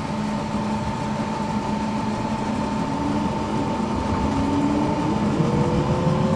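Inside an electric tram: a steady electrical hum, and from about three seconds in the traction motors' whine rising slowly in pitch as the tram pulls away and gathers speed.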